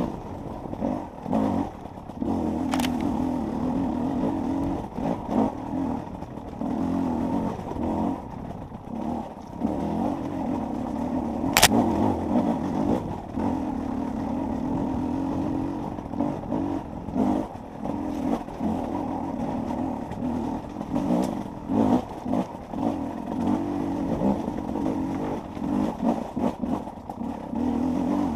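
Enduro dirt-bike engine being ridden, revving up and dropping off over and over as the throttle is opened and closed. Two sharp knocks, the louder one about twelve seconds in.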